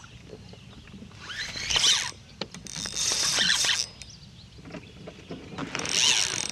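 Spinning fishing reel whirring in three bursts, each about a second long.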